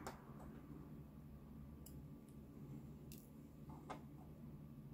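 A few faint, irregular clicks of tweezers touching the metal plates and screws of a Seiko 6117 watch movement as its automatic-winding plate is worked loose, over a low steady hum.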